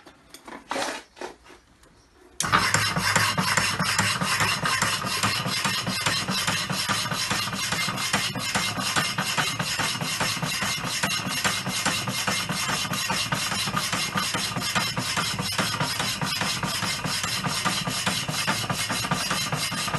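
Rapidor Manchester power hacksaw switched on about two seconds in, then running steadily, its blade stroking back and forth through steel plate with an even, rasping scrape over the drone of its drive.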